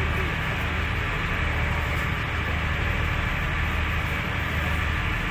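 River ferry boat's engine running at a steady low drone, with a steady rushing noise over it.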